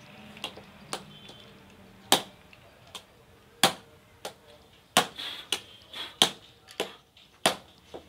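Hammer blows on a flat sawmill drive belt's joint laid over a wooden block: sharp knocks, the loudest about every second and a half, with lighter taps between.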